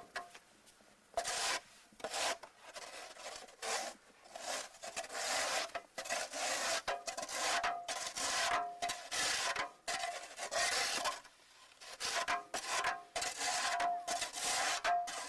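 Snow crunching and scraping in a run of irregular strokes, roughly one or two a second, with a short pause near the middle.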